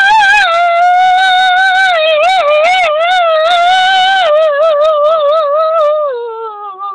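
A bad singer's voice holding one long, high note with a fast wobble, which slides down and trails off near the end.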